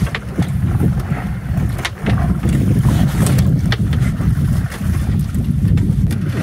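Wind buffeting the microphone in a dense low rumble, with water splashing against the boat's side as a hooked billfish thrashes alongside and is grabbed by hand, and scattered sharp knocks and splashes.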